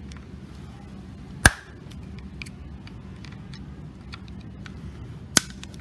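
Screwdriver working the screws of a Brother HE-800B buttonhole machine's lower thread clamp unit: scattered small metal ticks, with one sharp metallic click about a second and a half in and another near the end. A low steady hum runs underneath.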